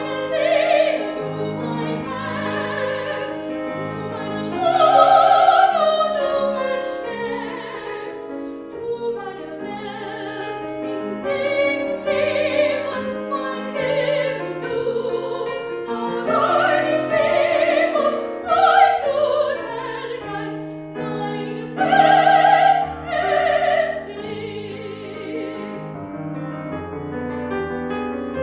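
Classical soprano singing in an operatic style with a wide vibrato, held high notes swelling louder several times, accompanied by piano.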